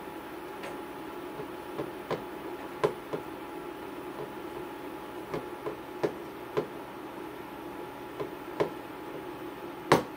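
A utensil clinking against a ceramic mixing bowl while pancake batter is stirred: about a dozen irregular sharp knocks, the loudest near the end, over a steady low hum.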